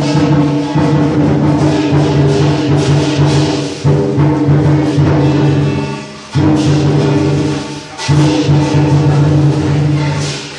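Lion dance music: loud, fast drumming with clashing cymbals and ringing tones, breaking off briefly twice in the second half.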